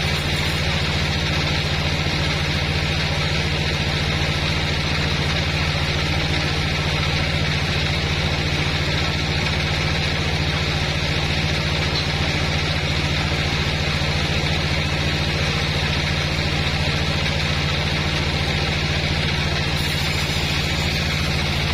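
Sawmill bandsaw machine running steadily: a constant low mechanical hum with a hiss above it.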